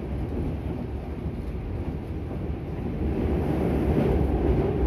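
Cabin running noise of a Meitetsu 3150 series electric train, heard from inside the car: a steady low rumble that grows louder about three seconds in.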